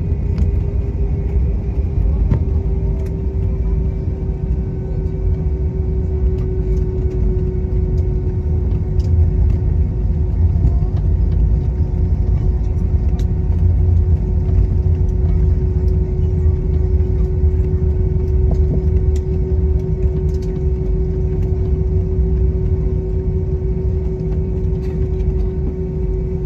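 Cabin noise of an Airbus A321 rolling along the ground just after landing: a steady low rumble with a steady engine tone that drops slightly in pitch over the first few seconds as the engines wind down, and occasional light clicks and rattles.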